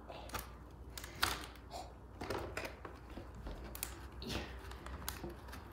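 A sword blade slicing and scraping through packing tape on a cardboard box, with the cardboard flaps creaking and tapping: irregular short scrapes and clicks, a few a second.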